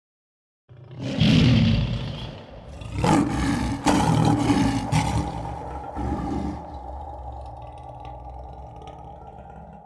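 A lion roaring as a sound effect: a loud roar starts about a second in, then several more swells that fade slowly. A steady tone comes in under it partway through and keeps going.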